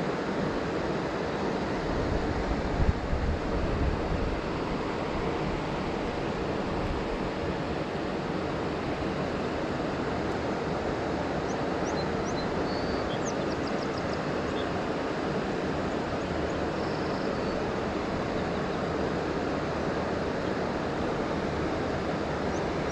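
Steady rushing of flowing river water, with a brief low rumble of wind on the microphone about three seconds in and a few faint high chirps near the middle.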